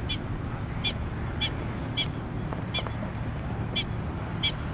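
A bird giving short, high calls, about seven in under five seconds at uneven spacing, over a steady low rumble.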